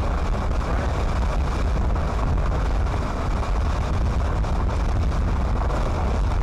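A vehicle driving at speed: steady road and wind noise with a deep rumble.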